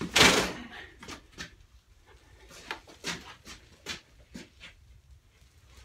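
A man breathing hard with exertion in short, irregular puffs. A loud burst of noise comes about a quarter second in.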